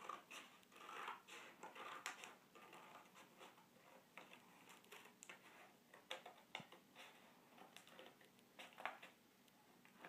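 Faint, irregular snips and rustles of small scissors cutting through a manila file folder backed with glued-on magazine paper.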